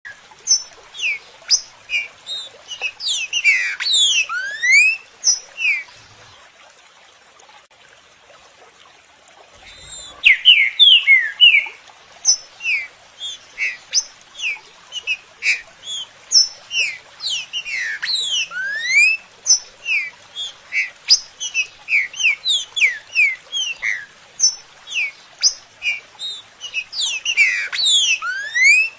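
Trinca-ferro (saltator) song: loud, clear whistled phrases of rapid rising and falling notes, repeated over and over, with a pause of about four seconds a quarter of the way in.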